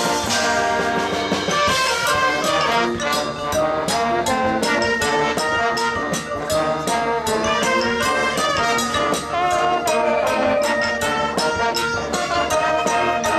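Marching band playing: brass (trumpets and trombones) carrying sustained, changing chords over a steady drumline beat.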